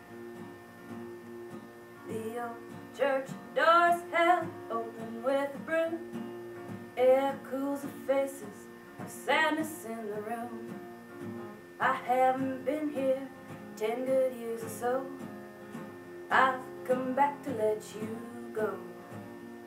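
Acoustic guitar being played, joined about two seconds in by a woman singing along in phrases.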